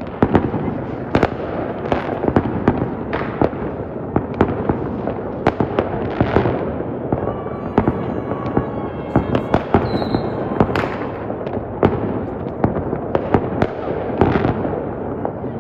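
Fireworks display: a dense, irregular barrage of sharp bangs and crackling, several a second, over a continuous rumble of further explosions. Faint steady tones sound briefly in the middle.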